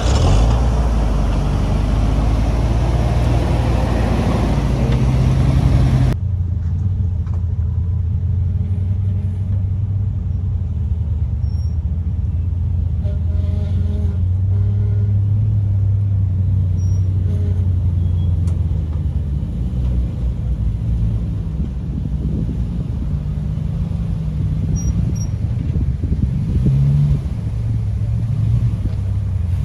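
Off-road 4x4 vehicle's engine running, with a loud rush of noise over it for about the first six seconds. After an abrupt change it becomes a low, steady engine drone whose pitch shifts slowly.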